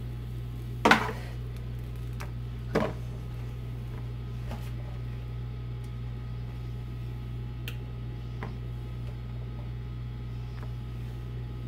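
Steady low hum with two sharp knocks, about one second and three seconds in, and a few faint clicks later: handling at a nonstick frying pan while mushroom filling and shredded cheese are laid on a flour tortilla.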